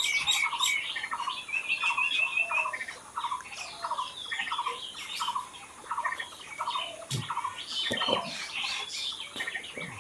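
Several birds chirping and calling together, with one bird repeating a short buzzy note about twice a second. A few low thumps come in around seven and eight seconds in.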